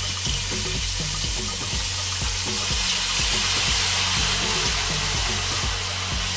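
Hot oil sizzling loudly and steadily as thick tomato paste is fried and stirred in a deep pot.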